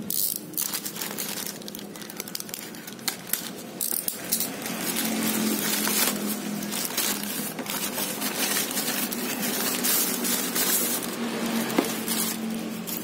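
Thin plastic courier mailer bag crinkling and tearing as it is ripped open and rummaged by hand, a dense irregular crackle.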